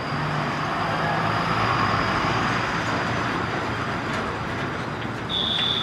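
Road traffic going by, with a steady noise of engines and tyres and a truck passing close. Near the end comes a short high beep.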